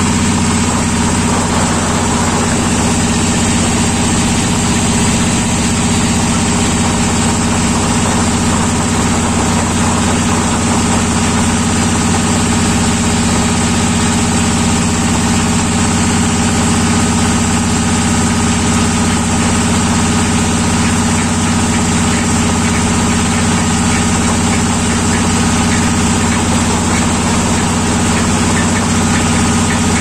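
Boat engine running steadily at a constant speed, with a level low hum and no change in pitch.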